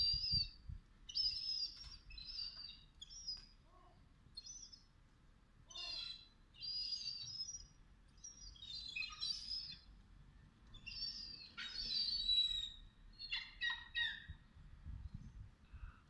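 A flock of gulls squabbling over bread, giving short, high-pitched calls in quick succession, often overlapping, a dozen or so over the stretch.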